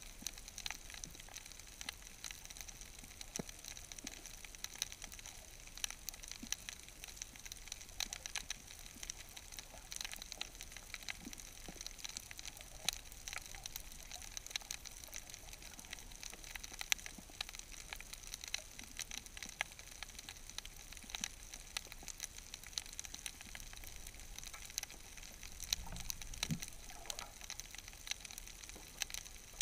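Steady underwater crackle of countless tiny, irregular clicks: the background snapping of shrimp on a shallow reef, recorded underwater.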